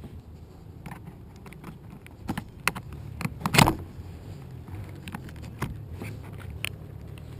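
Toy packaging being handled and opened: scattered small clicks and knocks of cardboard and plastic, with one louder crinkling scrape about three and a half seconds in, over a steady low hum.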